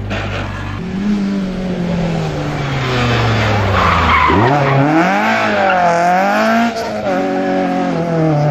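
Citroën C2 rally car's engine: revs fall as it comes off the throttle into a corner, with a burst of tyre noise as it turns in. Then the revs rise and waver as it accelerates out, drop sharply at a gear change near the end and climb again.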